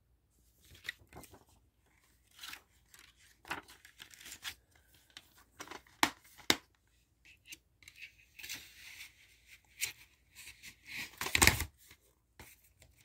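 Cardboard DVD packaging being handled: irregular rustling and scraping, with two sharp clicks about six seconds in and the loudest rustle near the end.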